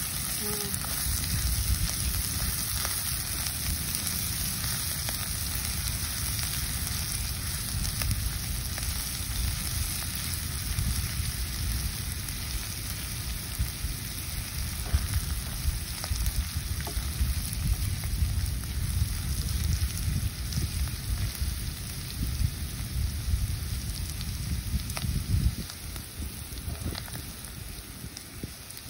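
Sliced aromatics sizzling in oil in a frying pan on a portable gas stove, stirred now and then with a spatula, over a low rumble that drops away near the end.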